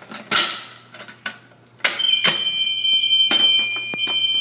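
A fire alarm pull station is pulled with a sharp clack. About two seconds in, a fire alarm sounder starts a steady, high-pitched electronic tone, broken for a moment partway through.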